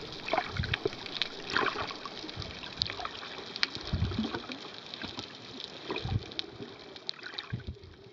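Underwater water noise picked up by a submerged camera: a muffled, even wash with scattered small clicks and crackles and a few low thumps, fading toward the end.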